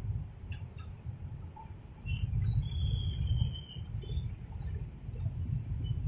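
Low rumble of road traffic, cars, motorbikes and a truck, swelling and easing, with a few short high bird chirps near the middle.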